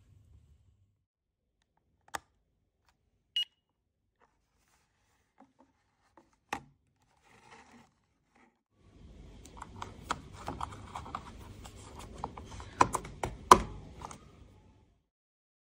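A few scattered clicks and one short, high electronic beep. Then about six seconds of rustling and clicking as the small plastic parts of a wireless home alarm kit are handled.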